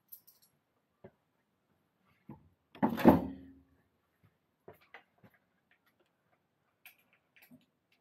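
Light metal clicks and taps of a hex key working bolts as they are snugged up, not fully tightened, with one louder knock about three seconds in.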